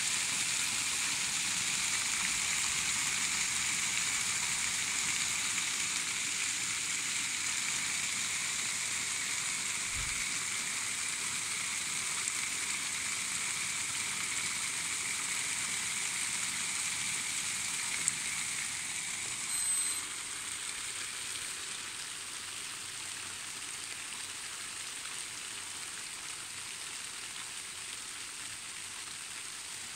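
Steady rain falling on garden foliage and grass: an even hiss that slowly grows quieter.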